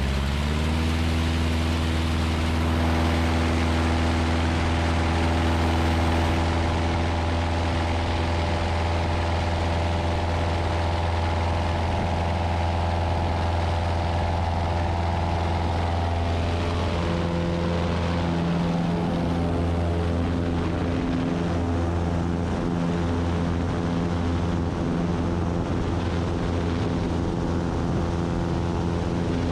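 Cozy Mk IV homebuilt canard airplane's rear pusher engine and propeller coming up to takeoff power right at the start, then running steadily through the takeoff roll over wind and runway rumble. The engine note shifts slightly a little past halfway.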